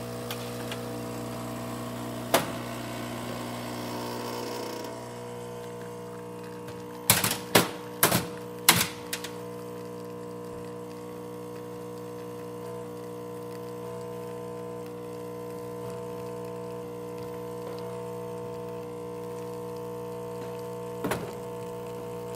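Pasquini G4 espresso machine's pump running steadily with a pitched hum while pulling a test shot, its element newly replaced. Several sharp knocks come about seven to nine seconds in, and one more near the end.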